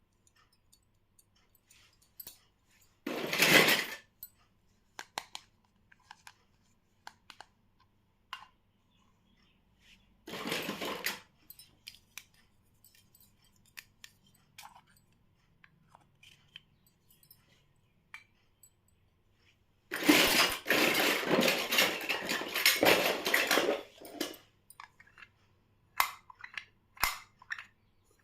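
Small plastic pieces of a miniature toy kitchen set clicking and tapping as they are handled, with three bursts of rustling packaging; the longest lasts about four seconds, past the middle.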